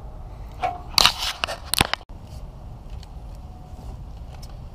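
Rustling and scraping from wires being handled inside a truck's wheel well, with a few sharp bursts in the first two seconds, then a steady low background rumble.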